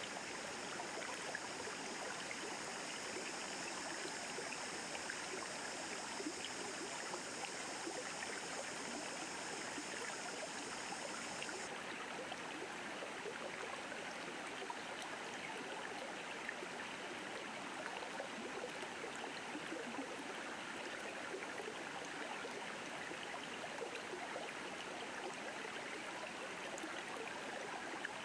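A shallow river running steadily over rocks, an even rushing of water. A high steady buzz sits over it for about the first twelve seconds and cuts off abruptly.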